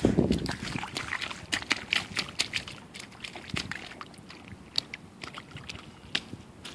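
A toddler's rubber rain boots splashing in a shallow puddle: a big splash at the start, then quicker small splashes and slaps of water that tail off.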